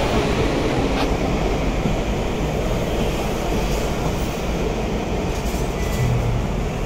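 Steady rumbling noise aboard a Hong Kong double-decker tram, with a single sharp click about a second in.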